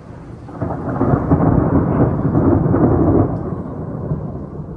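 A clap of thunder from a storm directly overhead: a loud rumble that builds about half a second in, peaks for a couple of seconds, then rolls away, over steady rain.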